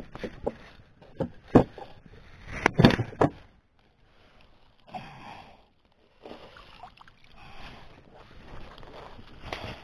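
Several sharp knocks and clatters in the first few seconds, then water sloshing in short bouts.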